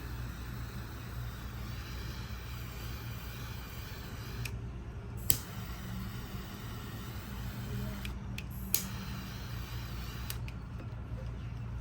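A steady low hum, with two sharp clicks about three and a half seconds apart, like a tool or part being handled.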